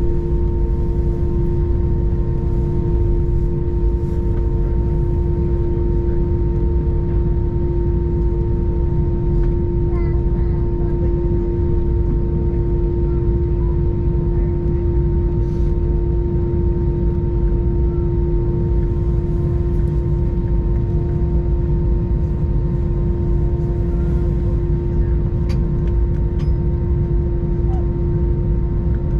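Steady cabin noise inside an Airbus A321 on the ground after landing: a constant low rumble with a steady hum, without change.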